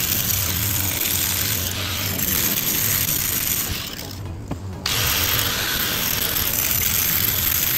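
Angle grinder with a masonry blade cutting through a concrete retaining-wall block, a steady grinding noise. About four seconds in it briefly drops away, then comes back at full level as the cutting resumes.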